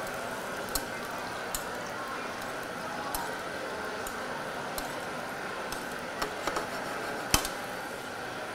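Carrots sizzling in a honey, butter and lemon-juice glaze in a stainless steel skillet as it caramelizes, with a few sharp clicks of a metal spoon against the pan, the loudest near the end.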